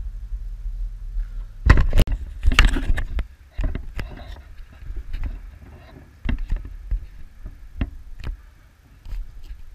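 Camera handling noise as the camera is moved and repositioned: a dense burst of loud knocks, bumps and rubbing about two seconds in, then scattered sharp clicks and thuds.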